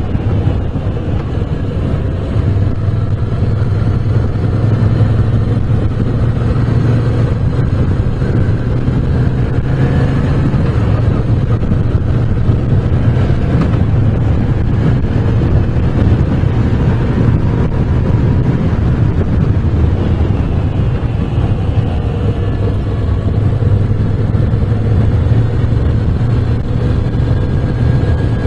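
Moto Guzzi V7 Special's 750 cc air-cooled V-twin running steadily under way, its pitch rising and falling gently as the bike accelerates and eases off through the bends.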